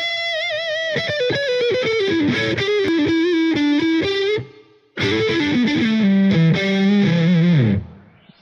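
Intro music: a distorted electric guitar playing a lead line, opening on a held note with vibrato and stepping downward. It breaks off briefly about halfway through, then plays a second descending phrase that fades out near the end.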